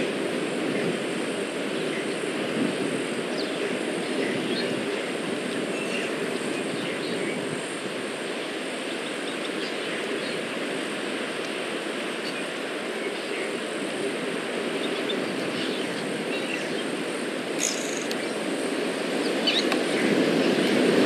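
Steady low outdoor rumble, with a few faint short high chirps scattered through it and a brighter chirp near the end.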